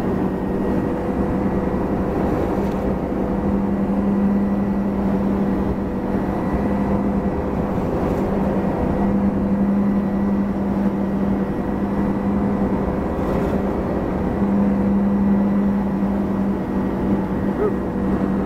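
Tow boat's inboard engine running steadily at slalom speed, about 34 mph, while pulling a water skier: a constant drone with a steady low pitch that swells slightly about ten and fifteen seconds in.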